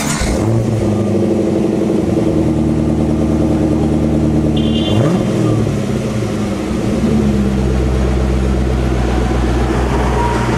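Camaro's engine running through its side exhaust, a steady low idle with a brief rev about five seconds in.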